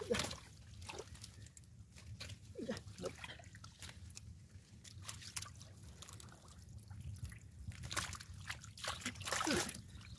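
Hands squelching and sloshing through shallow muddy water, with irregular small splashes and trickles.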